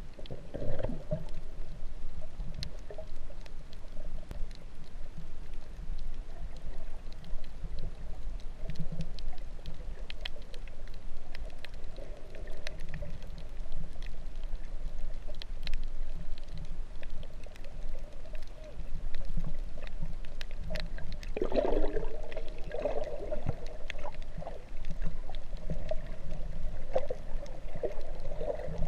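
Muffled underwater sound through a GoPro's waterproof housing: a steady low rumble of moving water with a wavering hum and many scattered sharp clicks. It swells into a louder gurgling surge a little past two-thirds of the way through.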